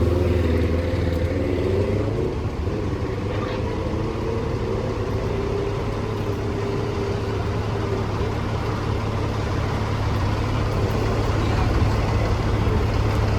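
Heavy diesel engine of a fire apparatus idling steadily, a continuous low hum, with indistinct voices over it in the first half.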